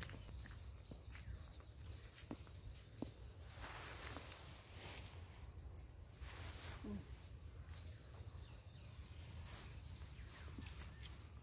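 Faint field ambience: insects chirping in a steady, evenly pulsing rhythm over a low rumble, with a few soft clicks.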